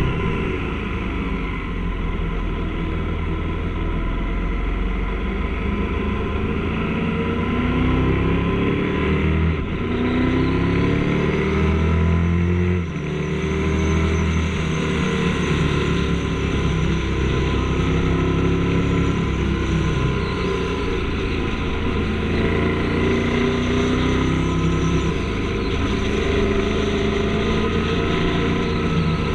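Triumph Tiger 900 Rally Pro's three-cylinder engine running under way, heard from an onboard camera over rushing wind. The engine note rises and falls with throttle and gear changes, with a brief drop about thirteen seconds in.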